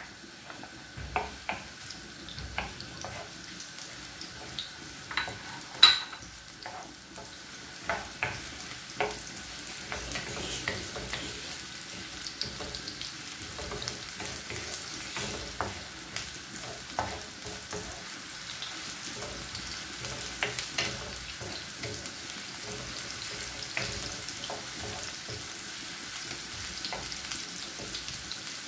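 Chopped onion sizzling in hot oil in a non-stick frying pan, with a wooden spoon stirring, scraping and tapping against the pan. The sizzle grows a little louder and steadier from about ten seconds in, and there is one sharp knock about six seconds in.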